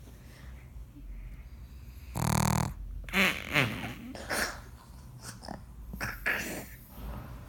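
Pug snoring: one long, loud snore about two seconds in, followed by several shorter, pitched breaths that slide up and down in pitch, then quieter breathing.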